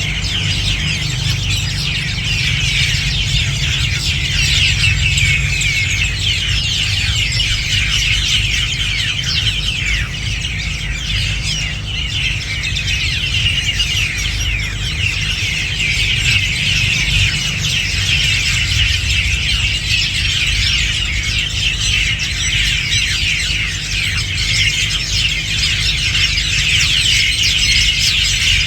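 Hundreds of birds calling together in a dense, unbroken chatter of overlapping short chirps, with a steady low rumble underneath.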